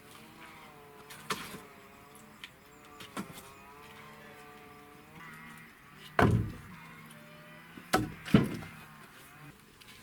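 A squeaking wheelbarrow wheel, its wavering squeal rising and falling as the barrow is pushed, with several loud knocks and thumps, the heaviest in the second half.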